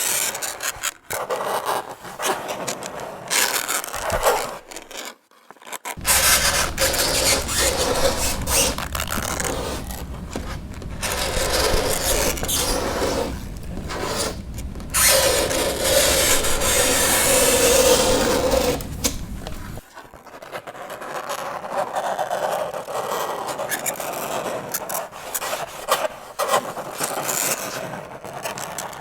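Fingernails scraping across a chalkboard in a series of harsh strokes, with a brief break about five seconds in. The middle stretch is louder, with a low rumble under the scraping.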